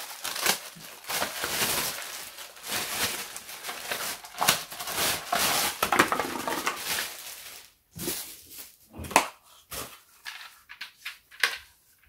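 Plastic wrapping crinkling and rustling as a vacuum cleaner's floor nozzle is pulled out of its bag and cardboard sleeve. This is followed by a few separate sharp clicks and knocks of the plastic nozzle being handled.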